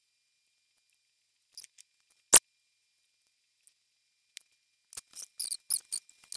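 Small handling sounds of rubber loom bands and a loom hook: a sharp click a little over two seconds in, then a quick run of short, high squeaky ticks near the end.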